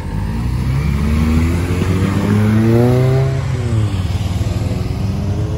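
Honda Civic hatchback accelerating hard away from the meet, its engine revs climbing for about three seconds, dropping briefly, then climbing again near the end as it pulls away.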